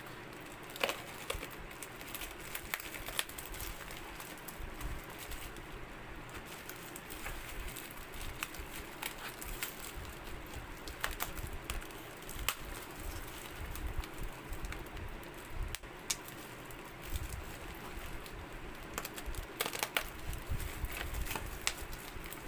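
Plastic bubble-wrap packaging crinkling and rustling as fingers pick at its tape, in scattered small clicks over a steady background.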